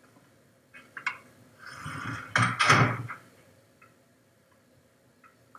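A door being closed: a couple of small clicks about a second in, then a short scraping rush lasting about a second as it swings shut.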